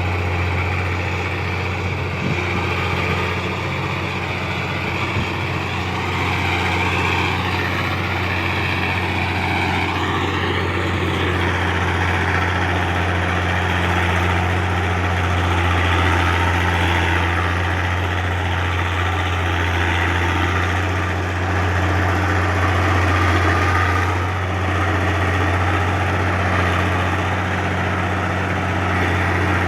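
Komatsu D60-8 bulldozer's diesel engine running at a steady speed, a deep even drone with no revving.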